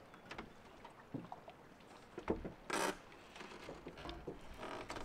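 Quiet handling noise as a fishing rod is lifted out of a boat's rod holder: a light knock a little after two seconds in, then a brief rub.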